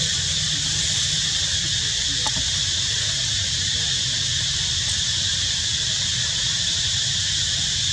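Steady outdoor background noise: an even high-pitched hiss over a low rumble, with a faint tick about two seconds in.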